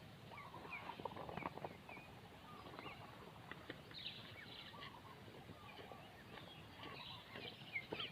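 Faint, scattered short bird chirps, many falling in pitch, with occasional small clicks and rustles over a low background hiss.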